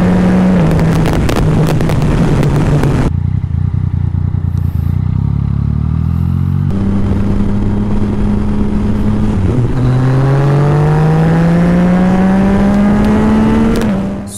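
Yamaha Tracer 900 GT's three-cylinder engine through an Akrapovic exhaust, riding at highway speed with heavy wind rush on the microphone. The engine pitch climbs steadily as the bike accelerates, dropping back at gear changes about half a second in and again near ten seconds in. For a few seconds in the middle the wind noise eases.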